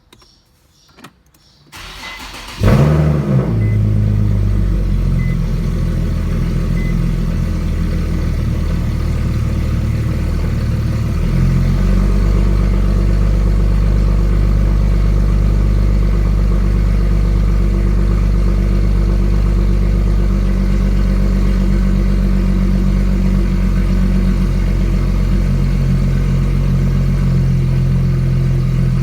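Car engine cold-started: the starter cranks briefly about two seconds in, the engine catches with a short flare, then settles into a steady idle below 1,000 rpm, its note shifting slightly lower and louder about eleven seconds in. The owner wonders whether the sound points to an exhaust leak.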